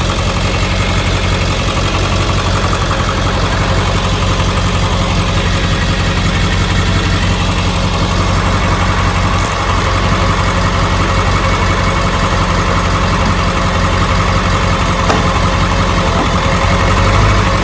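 Ford F-250 pickup running steadily, with a few faint knocks, near the middle and in the last few seconds: a clunk from a worn driveshaft universal joint.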